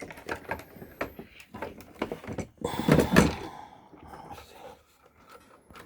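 Scattered clicks, taps and rustles of hands handling the plastic parts and wiring of an RC crawler, with a louder clatter about three seconds in.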